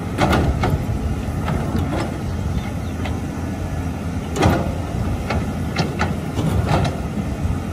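Caterpillar 320C hydraulic excavators' six-cylinder diesel engines running under digging load, with scattered knocks and clanks as the buckets bite into wet soil; the sharpest knock comes about halfway through.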